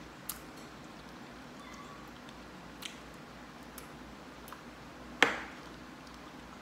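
Disposable wooden chopsticks clicking together and tapping as noodles are picked up: a handful of light, sparse clicks, with one much louder knock a little after five seconds in.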